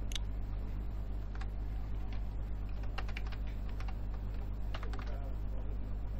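Computer keyboard: a handful of separate key presses, shortcut keys such as Ctrl, X and Backspace, spaced a second or so apart over a steady low electrical hum.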